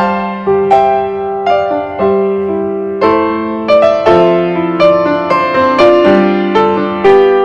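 Background piano music: a melody of separate notes struck about twice a second over held lower notes.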